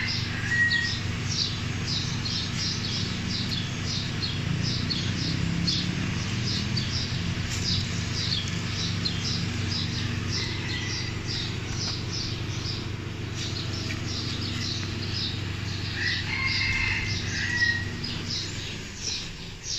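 Small birds chirping rapidly and without pause, several short chirps a second, over a steady low hum.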